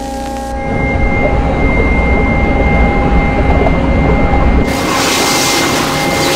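A loud, low rumbling drone with a few steady tones held above it, changing abruptly about half a second in and again about four and a half seconds in.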